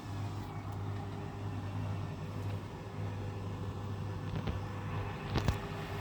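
Fagor front-loading washing machine's motor and drum spinning up toward a 1200 rpm spin, a steady mechanical hum, with a sharp click about five and a half seconds in.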